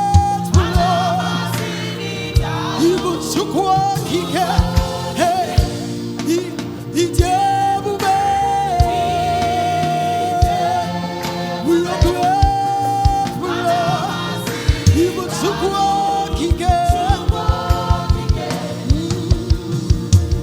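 Church choir singing a gospel song, with a lead voice holding long notes with vibrato over sustained chords and steady low drum beats. The beats quicken into a rapid run near the end.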